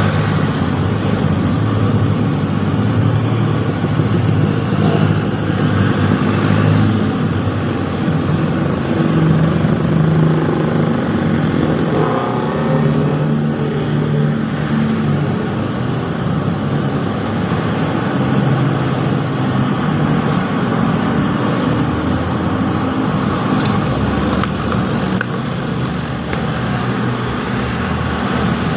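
Steady road traffic: jeepneys, cars and motorcycles driving past, a continuous mix of engine hum and tyre noise. One vehicle's engine note rises about twelve seconds in.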